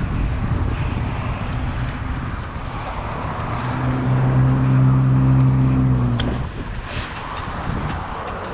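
Low rumbling wind noise on the microphone along with street traffic. About three and a half seconds in, a steady low drone comes in for roughly three seconds, then cuts off sharply.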